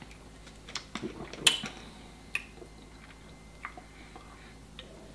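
Scattered small clicks and taps of a drinking glass and a plastic drink bottle being handled and drunk from, with one sharp click about one and a half seconds in and a smaller one a second later.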